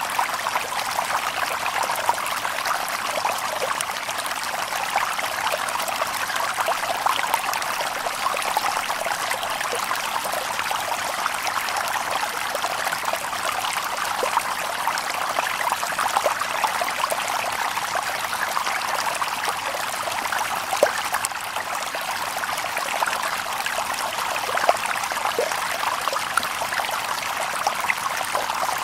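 Shallow stream babbling and trickling over stones, a steady splashing with many small drip and gurgle sounds and no birds.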